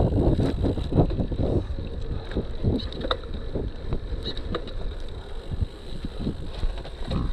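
A cyclocross bike rolling over a rough dirt track: tyre rumble and frequent short knocks and rattles from the bike, with wind buffeting the microphone. The knocking is heaviest in the first second or so.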